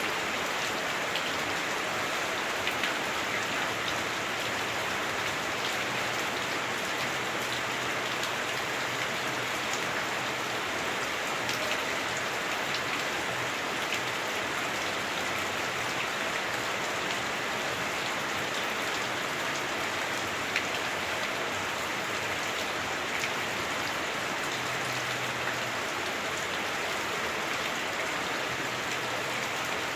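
Heavy rain drumming on a house roof, heard from inside: a steady dense hiss with scattered sharper drop hits.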